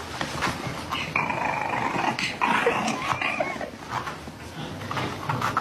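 A dog growling, a rough sound with no clear pitch, strongest from about one to three and a half seconds in.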